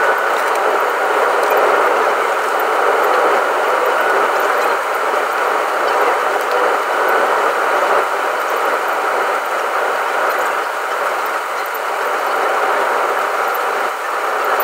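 Steady rushing cabin noise inside a Boeing 777-200 airliner during its descent, heard at a window seat. The recording is sped up, which raises the noise to a higher, hissing pitch with little low rumble.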